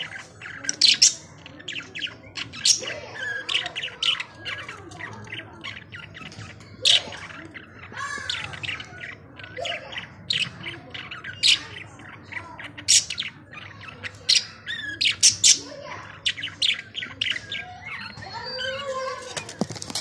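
Budgerigars chirping and squawking: an irregular run of short, sharp, high chirps, with softer chattering warbles between them.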